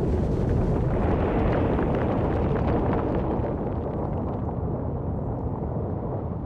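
Underwater volcanic eruption: a dense, continuous rumble shot through with many small crackles and pops, easing slightly in the last couple of seconds.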